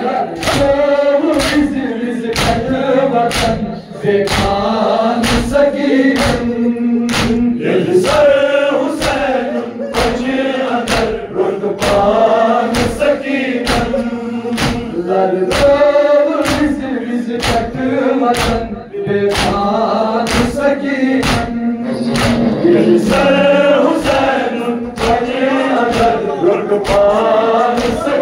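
A Kashmiri noha (Muharram lament) sung by a chorus of men's voices together, over steady rhythmic matam (chest-beating by the mourners), about two sharp strikes a second.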